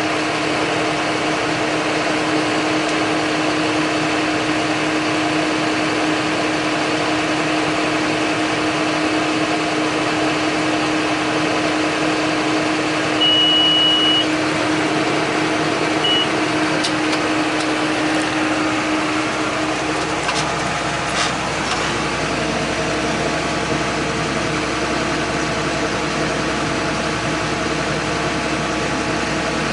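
John Deere 8100 tractor's six-cylinder diesel running steadily under load while baling hay. A high electronic beep sounds for about a second roughly halfway through, with a short second beep soon after. The engine note changes about two-thirds of the way through.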